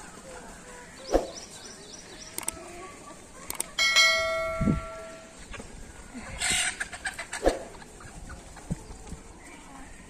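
Free-range chickens clucking, with a few sharp knocks and one metallic clang about four seconds in that rings on for about a second and a half.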